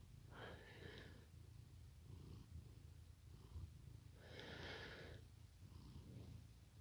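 Domestic cat purring, a faint low rumble, with two louder breathy sounds about half a second in and about four and a half seconds in.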